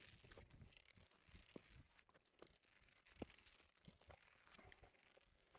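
Near silence, with a few faint, scattered clicks and scuffs over a low rumble.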